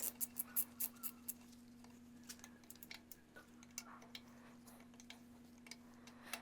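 Ratchet wrench clicking as the bolts holding the oil pump to a Ford 300 inline-six block are loosened: a quick run of clicks about five a second for the first second or so, then a few scattered clicks. A faint steady hum runs underneath.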